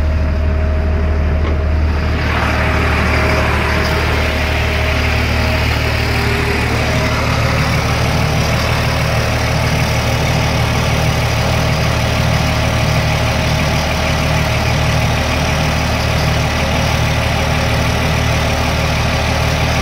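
Caterpillar 3116 turbo diesel of an LMTV military truck idling steadily, with an even hiss coming in about two seconds in.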